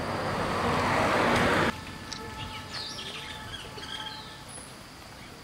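A rushing hiss of outdoor noise that swells and cuts off abruptly, then birds chirping faintly over quiet park ambience.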